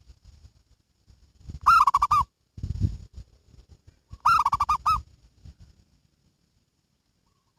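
Zebra dove (perkutut) singing: two short phrases of quick, rolling coos, the first about two seconds in and the second about four seconds in, with a low thump between them.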